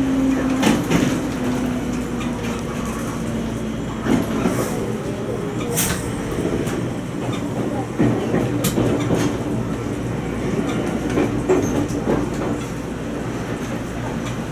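Toyama Chihō Railway 20020 series electric train (ex-Seibu New Red Arrow) running, heard from inside at the front. Its wheels click over rail joints at irregular intervals over a steady rumble, and a humming tone drifts lower in the first few seconds.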